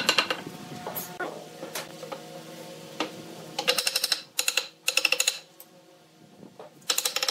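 Wooden mallet knocking on the edge of a wooden frame to drive the joints tight: a few single knocks, then quick runs of rapid light taps about halfway through and again near the end.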